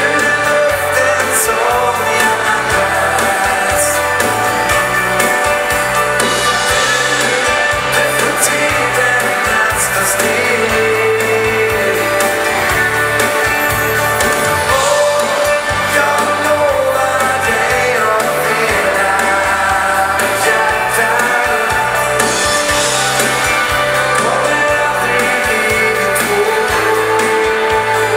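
Dansband playing a foxtrot live, with a singer over a bass line that moves note by note, drums and guitars.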